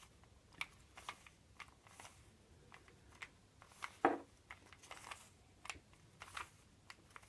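Plastic Rubik's Cube being turned by hand: irregular clicks and clacks as its layers rotate and snap into line, the loudest about four seconds in.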